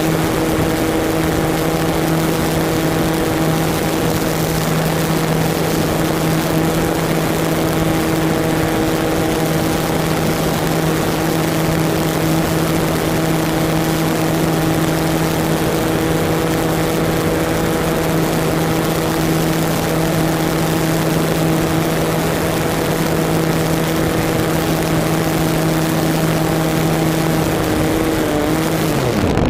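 Onboard sound of an RC model glider's motor and propeller running at a steady pitch, over a constant rush of air. Near the end the motor winds down with a falling pitch and stops, leaving the glider to fly on unpowered.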